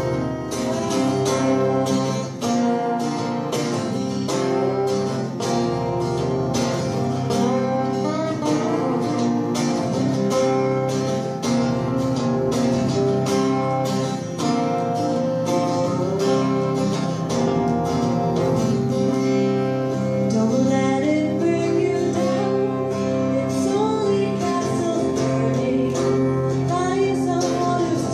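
Live acoustic music: two acoustic guitars strumming a steady rhythm, with a woman singing over them for part of it.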